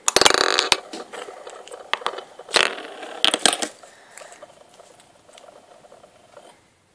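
Small toy spinning top set spinning on a hard surface with a clatter, then whirring steadily with a few clicks as it knocks about, and dying away near the end.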